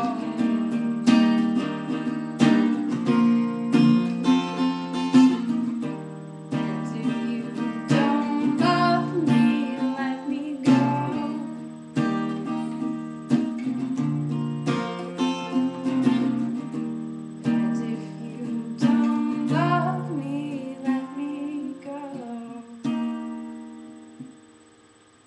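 Acoustic guitar strumming chords in a steady pattern; a last chord about 23 s in rings out and fades away.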